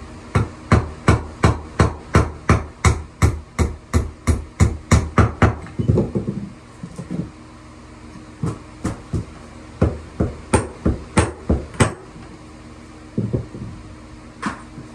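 Hammer striking a steel pry bar driven under old hardwood floorboards, in a fast even run of about three blows a second. A brief scraping noise follows, then a second run of blows and a few single strikes near the end.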